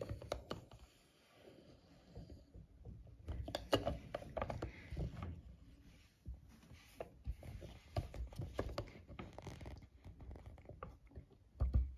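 Quiet plastic handling noises from a Play-Doh Hair Salon playset: irregular light clicks, taps and scrapes as the doll figure is pressed down into the salon chair, squeezing blue play dough out through the holes in its head as hair.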